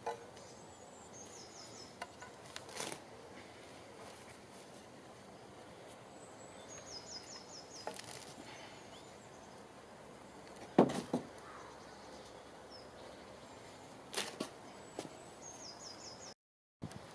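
Quiet outdoor ambience: a small bird repeats the same short, high-pitched song phrase three times, about seven seconds apart. A few sharp knocks sound in between, the loudest about eleven seconds in.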